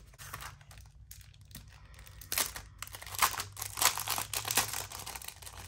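Clear plastic sleeve crinkling as sticker sheets are handled and slid out of it, a run of crackles starting a little over two seconds in.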